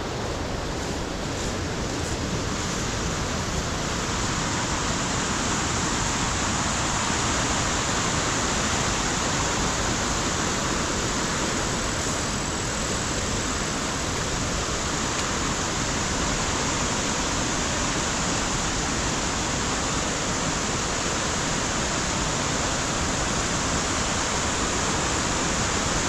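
Waterfall rushing: a steady, even rush of falling water, growing a little louder over the first few seconds.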